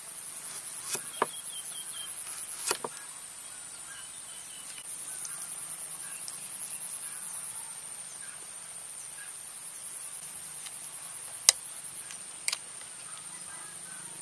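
Insects trill steadily and high-pitched, with a rapid pulse. A few sharp knocks and clicks cut across it: a large knife cutting limes on a wooden chopping block, and a spoon working in a small bowl. The loudest click comes late.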